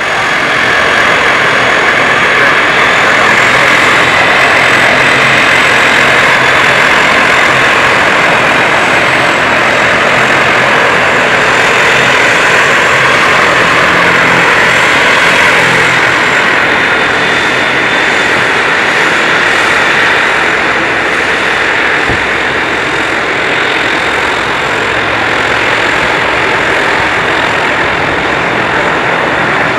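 Boeing 737-800's CFM56 turbofans running up to takeoff thrust as it rolls down the runway: a loud, steady rushing noise with a faint high whine, easing a little in the last third.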